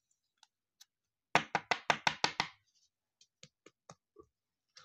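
Hard plastic trading-card case tapped sharply about seven times in quick succession while a card is seated in it, followed by a few faint clicks of plastic being handled.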